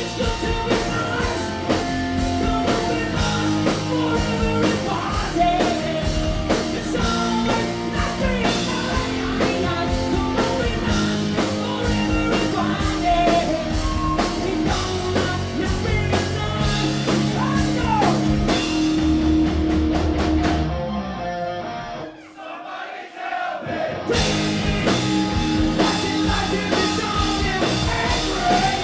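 Live rock band playing loud through a club PA: drums, distorted electric guitars and bass, with a singer. About three-quarters of the way in, the band drops to a short quieter break of a couple of seconds, then the full band comes back in.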